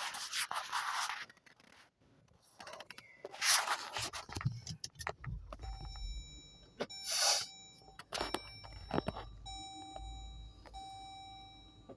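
Sounds of getting into a car and setting off: handling noises and a few sharp knocks, then a low engine rumble from about four seconds in, with steady electronic tones over it.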